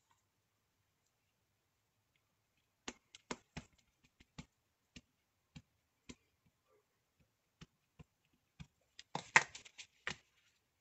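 Ink pad dabbed again and again onto a rubber stamp mounted on a clear acrylic block: a run of light, sharp taps starting about three seconds in, irregular and up to about two a second, with a louder quick cluster of taps shortly before the end.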